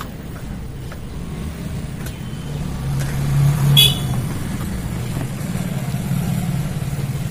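A motor vehicle engine running steadily, swelling about three seconds in, with a short horn toot just before four seconds.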